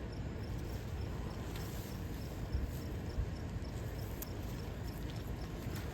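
Garden ambience: an insect, cricket-like, chirping evenly about twice a second over a steady low rumble, with a couple of faint clicks.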